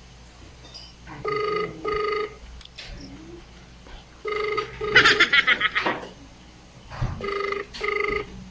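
Ringback tone of an outgoing mobile phone call heard through the phone's speaker: a double ring that repeats about every three seconds, three times. A woman's short laugh breaks in about five seconds in, right after the second double ring, and is the loudest sound.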